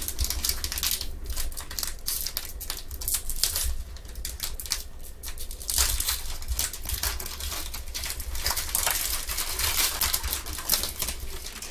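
Foil wrapper of a Donruss basketball trading-card pack crinkling and rustling as it is handled and torn open, with irregular crackles and clicks.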